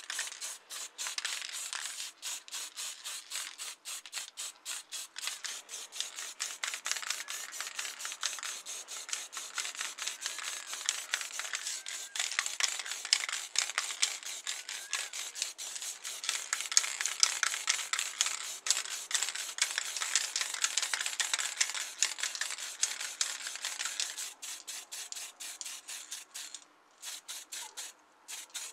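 Acrylic spray-paint aerosol can hissing in a fast, choppy run of short bursts. It is loudest in the middle and breaks off briefly a couple of times near the end.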